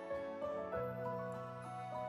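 Gentle background music: soft pitched melody notes over a sustained low note.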